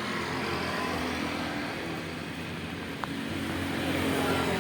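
Motor vehicle engine running steadily with road noise, growing slightly louder near the end.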